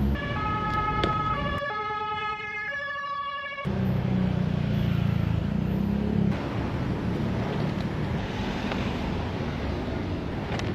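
Siren-like electronic tones that step between pitches and warble for the first three and a half seconds, then give way to a steady low rumble and noise like road traffic.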